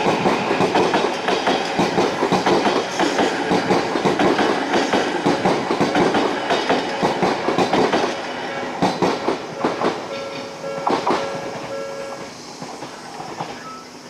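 Odakyu 1000 series electric commuter train passing over a level crossing, its wheels clattering over the rail joints. The clatter thins to a few last knocks once the train has gone by, about eight seconds in. The crossing's warning bell rings on and stops about twelve seconds in.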